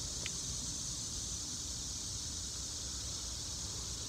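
Steady outdoor background hiss with a faint low rumble; no distinct sound event beyond one tiny tick shortly after the start.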